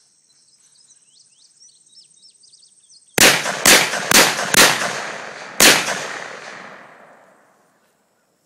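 Smith & Wesson Model 500 revolver firing five .500 S&W Magnum shots, emptying its five-round cylinder: four about half a second apart, then a fifth a second later, each ringing off into a long echo. Before the shots there is faint high insect buzzing and chirping.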